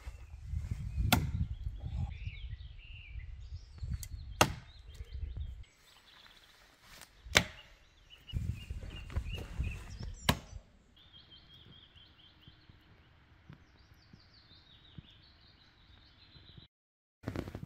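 Thrown axe hitting wood: about five sharp thuds spread over the first ten seconds, the loudest about seven seconds in, over a low rumble. Then faint high bird chirps.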